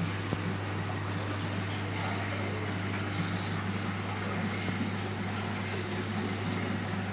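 Steady low hum with a continuous wash of water and air noise from aquarium pumps and aeration.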